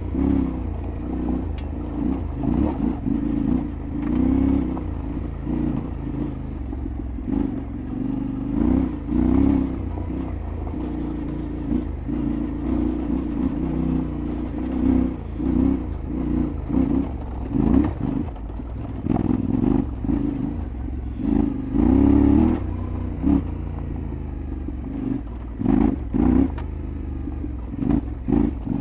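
Yamaha Ténéré 700 World Raid's parallel-twin engine being ridden off road, the throttle opened and closed again and again so the revs surge and drop every second or two. A few sharp knocks come through late on.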